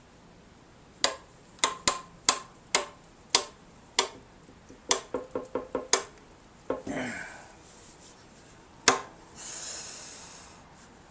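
Sharp knocks on a small sheet-metal engine gas tank while its dents are being worked out, each with a brief ring: about seven strikes roughly half a second apart, then a quick run of five lighter taps. A short scrape and a single loud knock follow near the end.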